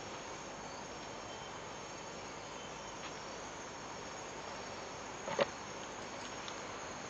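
Steady chorus of night insects, crickets. A single short knock or click sounds about five seconds in.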